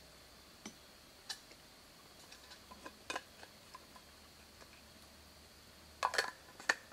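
Light clicks and clinks of a small metal drinking cup being handled, scattered at first, with a louder cluster of clicks about six seconds in.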